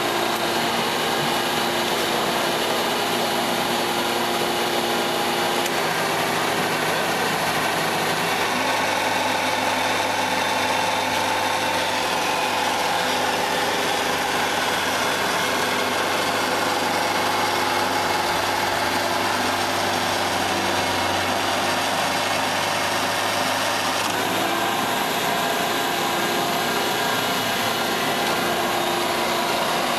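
1961 Gallis 310B roof bolter running, its dust-suction blower the loudest part: a steady, dense mechanical noise with several held tones that shift about 6, 9 and 24 seconds in.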